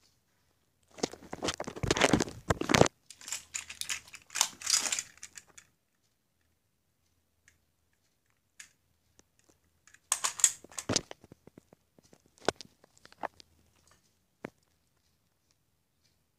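Handling noise of toy cars and plastic toys being picked up and moved about: rustling, crinkling bursts with sharp clicks. Two loud stretches, from about a second in and again around ten seconds, then a few scattered clicks.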